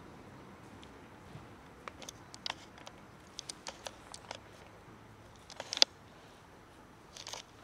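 A cat and a puppy eating dry kibble from a plastic tub: scattered small crunches and clicks, with a sharper tap about six seconds in.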